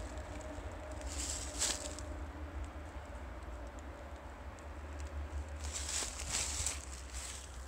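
Footsteps crunching in dry leaf litter: a couple of steps about a second in and a cluster of steps near the end, over a steady low rumble.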